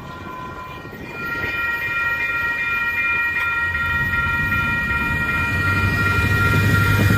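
Railroad grade-crossing warning bell ringing in a rapid repeated ding, starting about a second in, while the crossing gate arm rises. A low rumble swells under it near the end.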